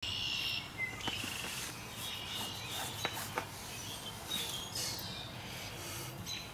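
Birds chirping over light outdoor background, with a few sharp clicks from a brake drum being turned by hand on a Dana 71 axle hub. The drum rolls and then binds, which the mechanic takes as a sign that it is not centered on the hub.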